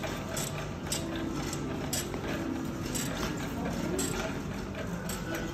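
A light metallic rattle with a soft click about once a second, from walking with luggage across a tiled floor, over the steady hum of a large hall.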